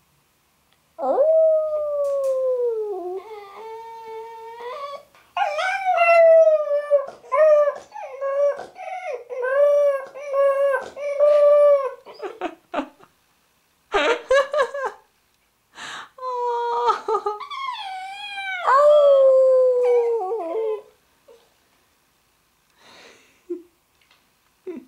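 Labrador puppy howling in long, wavering pitched notes that glide down and up, in several stretches separated by short breaks.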